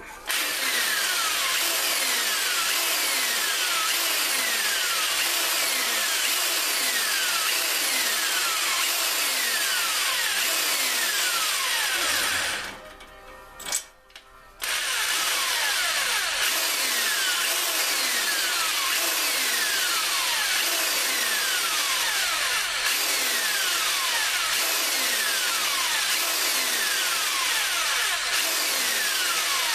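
Electric drill spinning a cylinder hone in the bore of a Craftsman tiller engine, the hone stroked up and down to break the glaze and put back crosshatch, with repeated falling sweeps in pitch. It stops briefly about 13 seconds in, then starts again.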